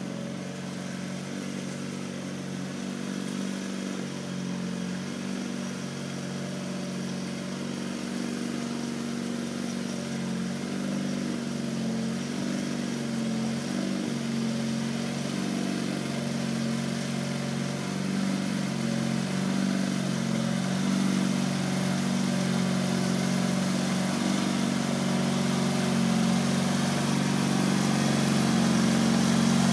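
MTD 995 garden tractor's engine running steadily as it pulls a box grader, growing louder as the tractor comes closer.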